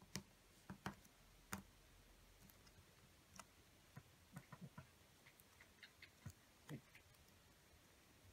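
Faint handling of a paper sheet being folded and creased by hand: scattered short clicks and crinkles. The sharpest ticks come in the first two seconds, then softer ones follow every second or so.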